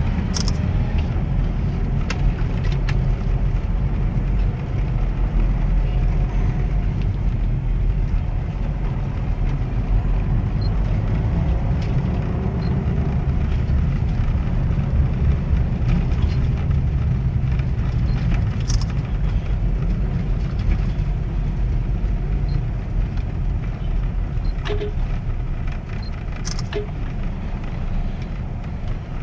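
Car driving slowly in town traffic, heard from inside the cabin: a steady low engine and road rumble with a few short clicks.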